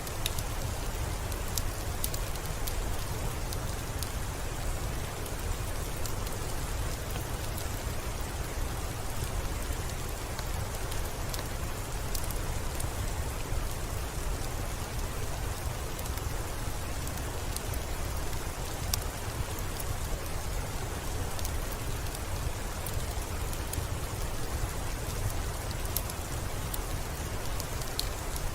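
Steady rain falling on a surface, with scattered sharp drop ticks and a low rumble underneath.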